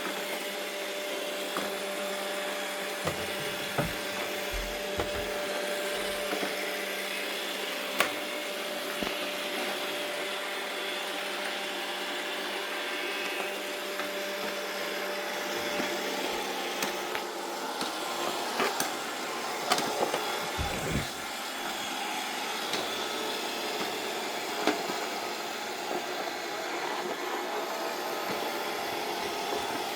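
Two robot vacuum cleaners, a WAP W90 and an iRobot Roomba 675, running at once: a steady motor and brush whir with a held tone that stops about halfway through, and occasional sharp knocks.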